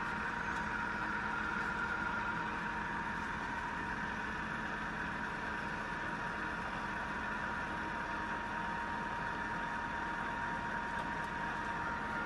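All-geared head of a Falconi radial drilling machine running, with the spindle turning and feeding down under power feed. It makes a steady mechanical hum with a constant gear whine.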